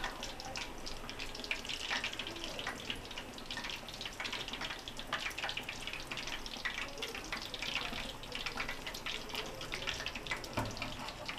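Chapli kabab deep-frying in hot oil: a steady sizzle with dense, irregular crackling pops.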